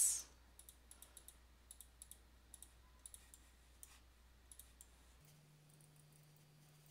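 Computer mouse clicking: faint, irregular single clicks, about two or three a second, thinning out after about five seconds, as hole markers are clicked one by one to fill them.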